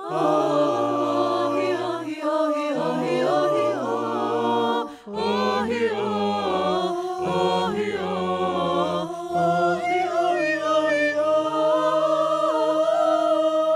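Mixed a cappella choir of men and women singing wordless harmonies without instruments, with a woman's solo voice on top and men's low voices holding a bass line underneath. The singing breaks briefly about five seconds in and closes on a long held chord.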